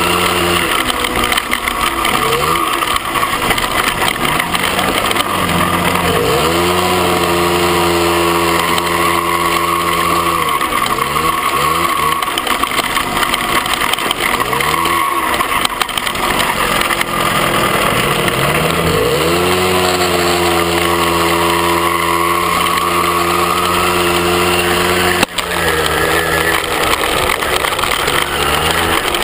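Small motorbike engine running under way on a dirt track, its note repeatedly dropping as the throttle eases off and rising again as it revs back up, with wind hiss on the microphone. A single short knock near the end.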